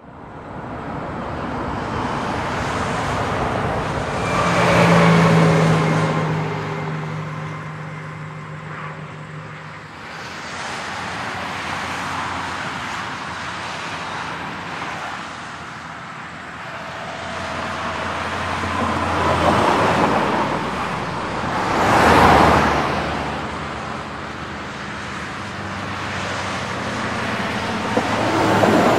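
Motorway traffic: a steady roadside rush of vehicles, with single vehicles swelling up and fading as they pass close by, one with a low engine drone a few seconds in, the sharpest pass about two-thirds through, and another near the end.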